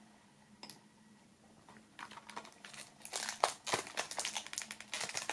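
Thin plastic shrink wrap crinkling and crackling as fingers pick at it and peel it off a CD digipack. It starts about two seconds in and runs on as an irregular rustle of small crackles.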